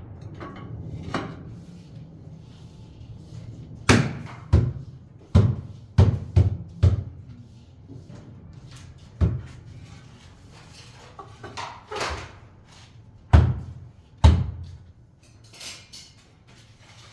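A series of about ten irregular knocks and thuds, several in quick succession a few seconds in, then single ones spaced out, the loudest near the end.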